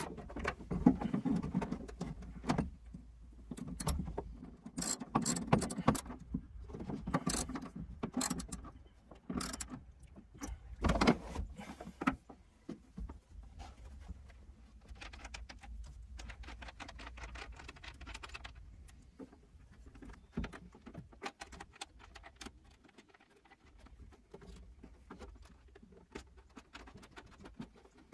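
Hands working with battery cable, a wire stripper and metal ring terminals: a run of scattered clicks, rattles and rustles, with a louder clatter about eleven seconds in, over a steady low rumble.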